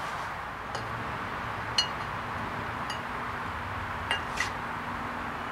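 Light metallic clinks, about five spread out with the sharpest near two seconds in, as aluminium rocker box pieces are handled and set onto a Harley-Davidson Evolution engine's cylinder head, over a steady background hiss.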